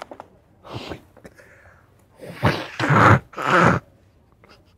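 A person's loud, breathy vocal outbursts, not speech: one short burst about a second in, then three louder ones in quick succession in the middle, like exaggerated sneezes.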